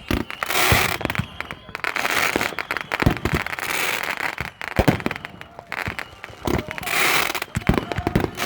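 Consumer fireworks going off: a rapid string of sharp bangs and pops, with several bursts of dense crackling hiss in between.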